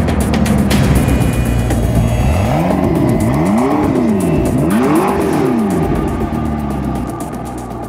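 2015 BMW M4's twin-turbocharged inline-six revved twice in quick succession, the pitch climbing and falling back each time.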